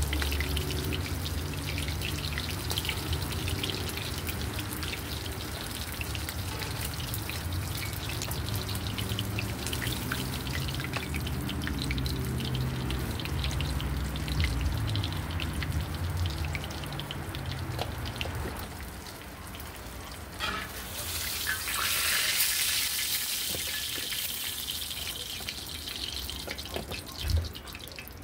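Hot oil sizzling and crackling as seafood fries in a cast-iron skillet, over a low steady hum that fades out about two-thirds of the way through. The sizzle swells louder about three-quarters of the way in, and a single knock comes near the end.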